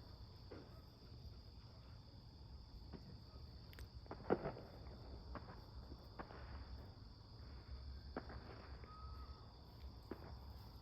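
Steady chirring of crickets, with scattered faint bangs from distant fireworks going off every second or two; the sharpest comes about four seconds in.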